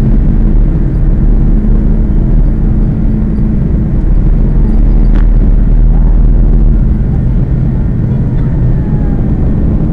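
Airbus A330's wing-mounted turbofan engine running steadily, heard from inside the passenger cabin as a loud, even rumble with a low hum.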